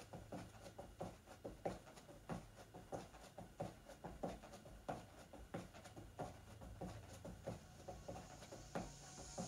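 Sneakered feet landing on an exercise mat over carpet while skipping in place with high knees: soft footfalls in a quick, even rhythm of about three a second.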